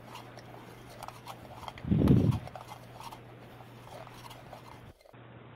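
Plastic measuring chamber of a water meter handled and turned in the hands: faint plastic clicks and taps, with one muffled bump about two seconds in, over a steady low hum.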